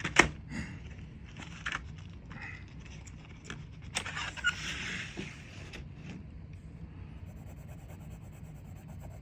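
Drawing supplies being handled before colouring: a sharp click just after the start, scattered small clicks and scrapes, and a scratchy rustle about four seconds in, then only low room noise.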